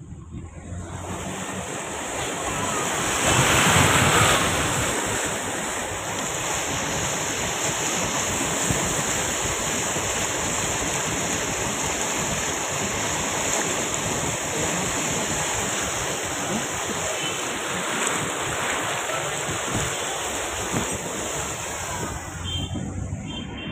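Floodwater rushing and sloshing around a car's wheels and body as it drives slowly through a flooded street. The noise is steady, swells to its loudest about three to four seconds in, then holds level.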